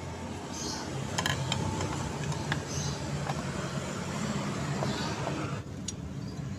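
Light metallic clicks and taps as an aluminium engine cover is fitted over the starter clutch onto a Yamaha Mio J scooter's crankcase, a few scattered knocks over a steady low background hum.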